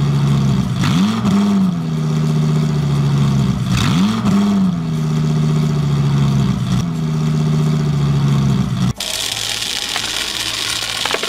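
Vehicle engine sound effect. It revs up and settles twice in the first few seconds, then runs steadily, and cuts off abruptly about nine seconds in.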